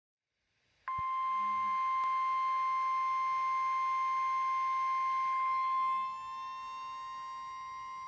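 NOAA Weather Radio receiver sounding the steady 1050 Hz warning alarm tone, starting suddenly about a second in: the signal that a warning is being broadcast. About six seconds in it drops in level and a second siren-like tone, rising slightly in pitch, joins it.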